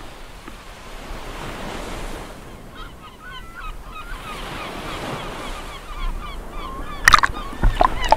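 Sea water washing and lapping, fading in, with many short high chirping calls over it from about three seconds in. Near the end come a couple of sudden loud bursts.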